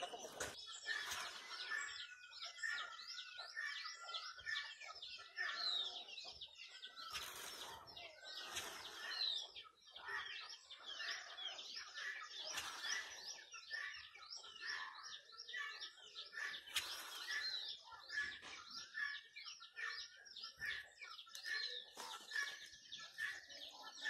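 Birds chirping: a dense run of short, quick chirps, with a few louder calls standing out now and then.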